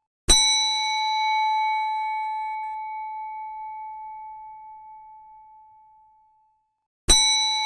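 Reception desk bell struck once, its ding ringing on and slowly fading away over about six seconds; struck again near the end.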